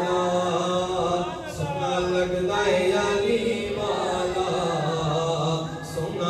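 Unaccompanied devotional chanting: voices hold long notes while a lead voice slides between pitches, with no instruments.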